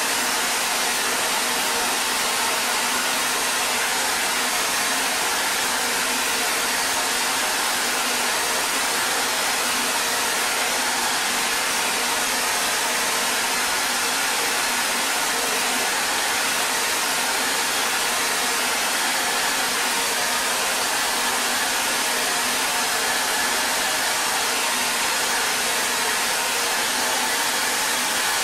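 A steady, unbroken hiss that holds the same level throughout, with a faint hum underneath.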